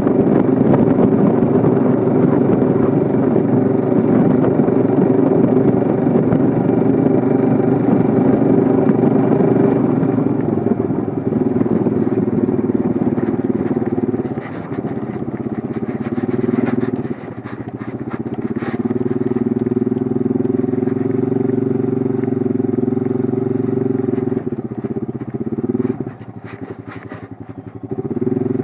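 An engine running steadily, its level dropping and picking up again several times.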